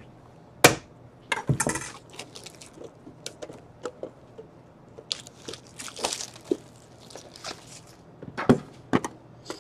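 Clear plastic wrap being torn and crinkled off a hockey card tin, with scattered crackles and small taps as the tin is handled. A sharp click comes just under a second in, and two sharp knocks near the end.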